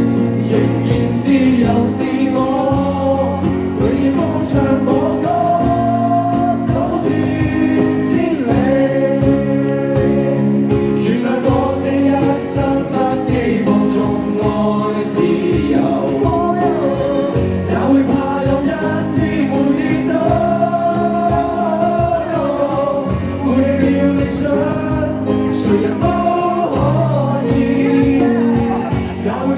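Live Cantonese pop song: sung vocals, with several voices singing together, over band accompaniment of sustained chords and a bass line.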